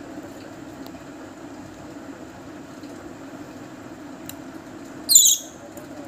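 A young parrot chick being syringe-fed gives one short, shrill, wavering squeak about five seconds in, a begging call, over a steady low hum in the background.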